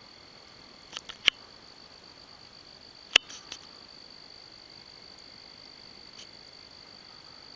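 Insects chirring in a steady, high continuous drone. A few sharp clicks cut across it: three close together about a second in, and the loudest at about three seconds with a softer one just after.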